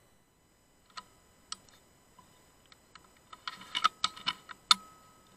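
A scattering of sharp clicks and taps: two single clicks early, then a quick flurry of louder ones. The last and loudest click is followed by a short metallic ring.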